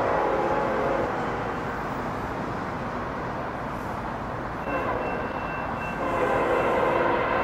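Union Pacific 8610's locomotive air horn sounding a chord as the train approaches: one blast that fades out about a second in, then another that starts about five seconds in and grows louder. A steady low rumble lies beneath.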